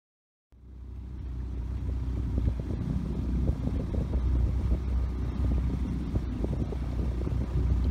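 Tohatsu outboard motor running with the boat under way, with wind buffeting the microphone and water rushing past the hull. The sound cuts in about half a second in and builds over the next second or two to a steady, heavy low rumble.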